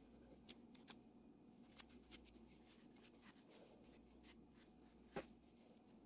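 Faint, scattered light clicks and taps of small parts and tools being handled on a workbench, the loudest about five seconds in, over a low steady room hum.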